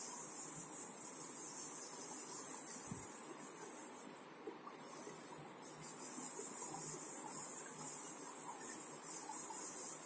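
Board duster rubbing across a chalkboard, a steady high hiss made of quick repeated wiping strokes, with a short break about four seconds in.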